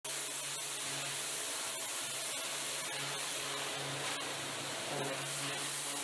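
Pressure washer spraying water over an old Lister stationary engine: a steady hiss of spray, under a low hum that swells and fades about once a second.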